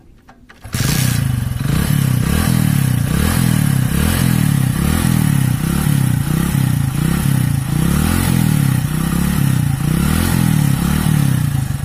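Hero Splendor Plus single-cylinder four-stroke motorcycle engine kick-started with its freshly cleaned, formerly carbon-fouled spark plug: it catches under a second in and runs, its speed rising and falling in regular swells about once a second.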